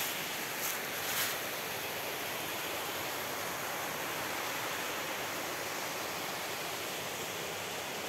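Steady rush of a forest stream cascading over rocks in small waterfalls, with two brief scratchy sounds in the first second or so.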